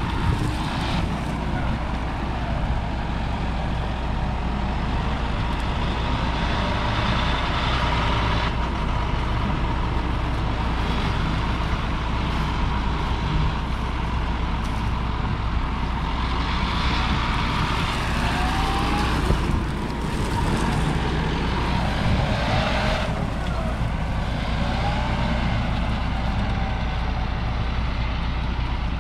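John Deere 6155R tractor's 6.8-litre six-cylinder diesel engine running steadily under load, with a few short rising whines about two-thirds of the way through.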